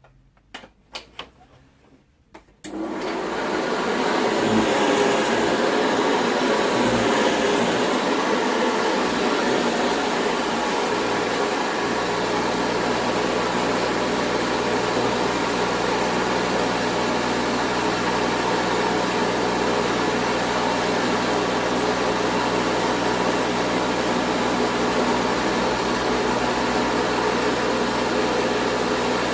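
Hoover Senior 652A upright vacuum cleaner switched on after a few light clicks: its motor runs up to speed over about a second and then runs steadily and loud, at about 94 dB on a sound level meter.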